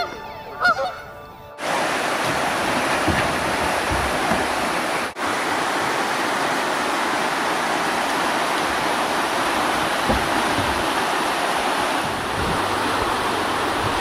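Two short goose honks over quiet river water, then the steady rushing of shallow river rapids starts abruptly and carries on, with a brief dropout about five seconds in.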